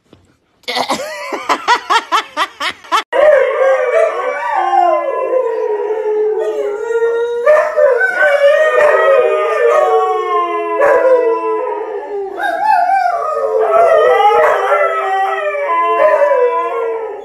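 Husky howling: a quick series of short yips, then long, wavering howls that rise and fall in pitch, one after another.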